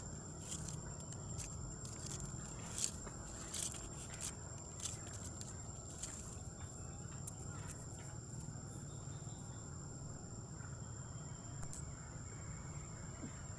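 Forest ambience: a steady high-pitched insect drone over a low rumble, with a few sharp dry clicks and crackles in the first five seconds and one more near the end.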